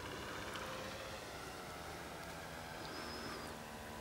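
Model airplane engine droning faintly and steadily as the radio-controlled plane flies at a distance, just after a close pass.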